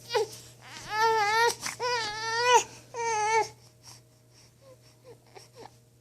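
Baby fussing: three drawn-out cries in a row, then a few short faint whimpers, over a faint steady hum.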